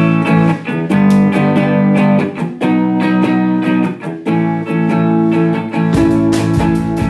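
Rock song intro on electric guitar: chords ringing out and changing about every second. About six seconds in, drums and bass guitar come in under it.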